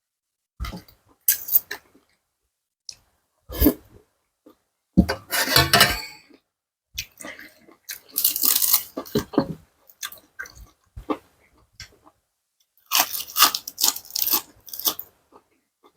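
Close-up chewing of mouthfuls of spicy seafood salad with fresh vegetables: wet, crunchy chewing in several bursts, with short silent pauses between them.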